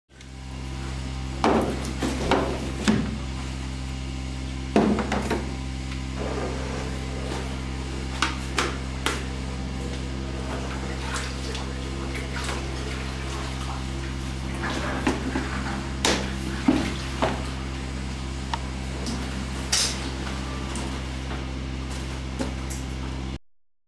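Plastic cheese moulds knocking and clattering as a Gouda curd is lifted out of its mould and set back in with a net for pressing, over a steady low hum.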